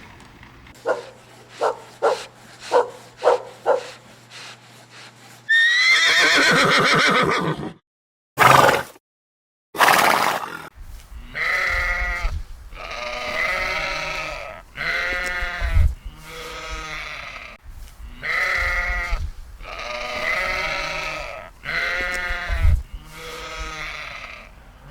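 Farm animal calls in a sequence. First a quick run of about eight short calls, then one longer call and two sharp bursts. From about eleven seconds in, a series of about nine pitched calls, each lasting about a second.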